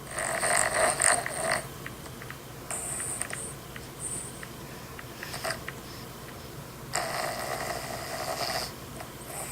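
A person snoring in sleep: two long snores, each about a second and a half, at the start and about seven seconds in, with shorter, fainter breath sounds between.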